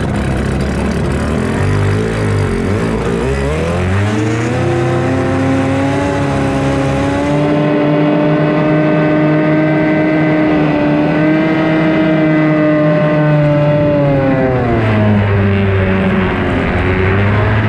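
B Stock Hydro racing hydroplane's two-stroke outboard engine pulling away from the start. Its note rises over a few seconds, holds high and steady at full throttle, then drops to a lower pitch about fifteen seconds in.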